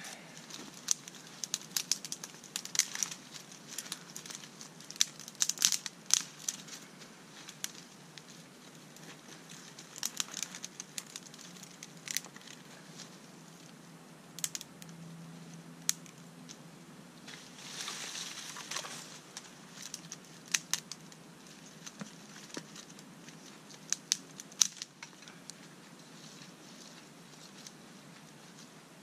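Dry leaf litter rustling and crunching, with sharp cracks and clacks of dry sticks as kindling is gathered and handled. The snaps come irregularly, a few at a time, with a longer rustle about two-thirds of the way through.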